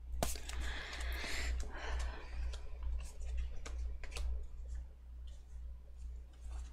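Tarot cards being handled: a sharp click and a rustling shuffle of the deck in the first two seconds, then scattered light clicks as a card is laid onto the spread, over a steady low hum.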